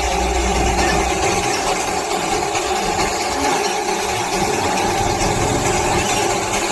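Coal-fired Darjeeling Himalayan Railway steam locomotive running with a steady, even noise; a low hum underneath drops away about a second in.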